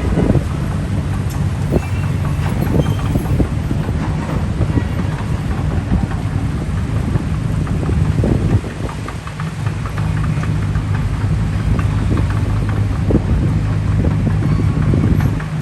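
Heavy diesel engines of bulldozers and an excavator running steadily, with frequent metal clanks and rattles throughout.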